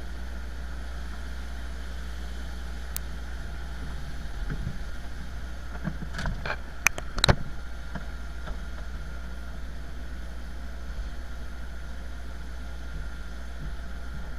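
Steady idling engine drone with a faint steady whine, the ground noise of an aircraft parked at the gate. A few sharp knocks come about six to seven and a half seconds in, the loudest two near seven seconds.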